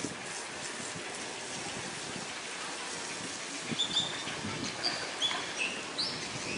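Short, high-pitched animal chirps, about half a dozen, starting a little past halfway, over a steady hiss.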